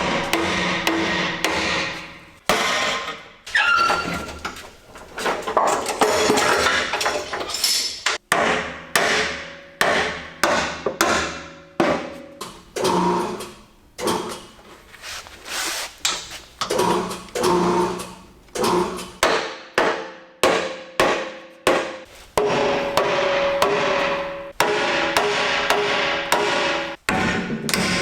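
A hammer repeatedly striking the steel body mounts of a Chevrolet Silverado 3500HD pickup frame to straighten the bent mounts. The blows come about one or two a second, each ringing briefly like struck steel, with quicker runs of blows near the start and near the end.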